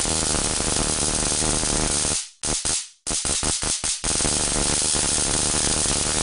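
Homemade stun gun's high-voltage boost module arcing across its electrodes, a loud harsh crackling buzz. It is held for about two seconds, then fired in a string of short bursts, then held steadily for over two seconds before cutting off.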